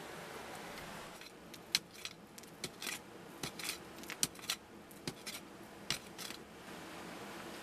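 Curved metal blade digging into stony, gravelly soil: an irregular run of sharp clinks and short scrapes as the blade hits stones. It starts about a second in and stops near the end.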